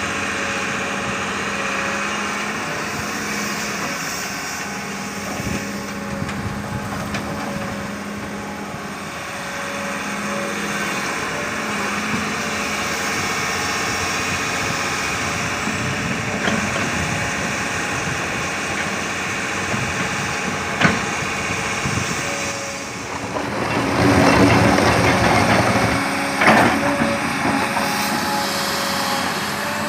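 Sumitomo S280 excavator's diesel engine running steadily as the machine works. About three-quarters of the way through it grows louder and rougher for a few seconds, with a few sharp knocks.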